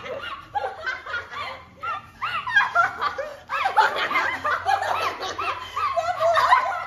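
Several young women laughing and giggling together, short high-pitched bursts overlapping, growing louder and denser about two seconds in.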